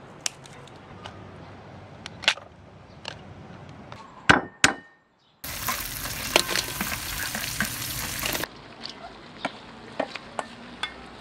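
Sharp clicks of scissors cutting into a mud crab's shell, then two loud knocks and a brief moment of silence. Crab pieces and garlic sizzle loudly in a hot wok for about three seconds, with clinks of a utensil. After that come quieter scattered clicks and scrapes of stirring in the wok.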